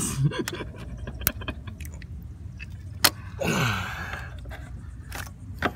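A stuck rubber coolant hose being twisted and pulled on its fitting by hand: scattered clicks and knocks from the clamp and surrounding parts, with a brief louder rasping sound that falls in pitch about three and a half seconds in.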